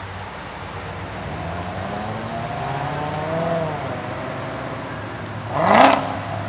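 Classic cars driving slowly past, engine notes rising and falling as they go by; near the end one car's engine gives a short, loud rev that rises quickly in pitch.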